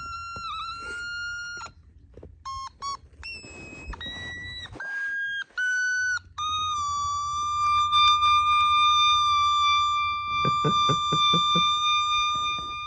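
Otamatone played in its high range: a few buzzy, electronic-sounding notes and short blips stepping between pitches, then one long steady high note held for about six seconds. The sound is very weird.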